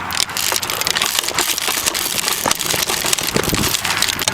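Airsoft AK74 rifle firing rapidly: a dense run of sharp mechanical clicks.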